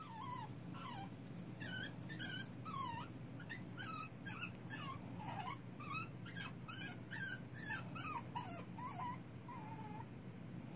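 Young puppy whimpering and crying: a string of short, high-pitched cries that slide up and down in pitch, about two a second, thinning out near the end. A steady low hum runs underneath.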